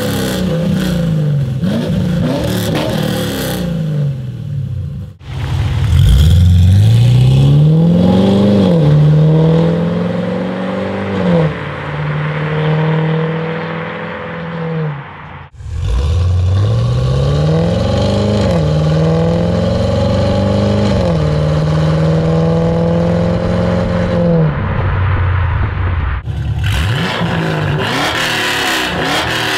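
Chevrolet Camaro SS V8 running through a reworked Borla exhaust with its valves closed in quiet mode. The engine is revved, then pulls twice, each time rising in pitch, holding steady and easing off. In the last few seconds the valves are open in loud mode, bypassing the muffler, and the V8 is revved again.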